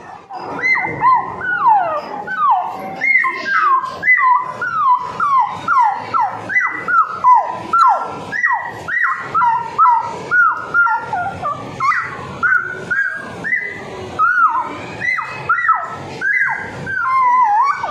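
A child's voice imitating a puppy: a quick run of short whining yelps, about two a second, each falling in pitch.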